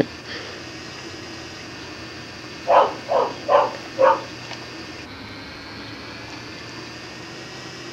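Dog barking four times in quick succession, the barks about half a second apart, over steady tape hiss.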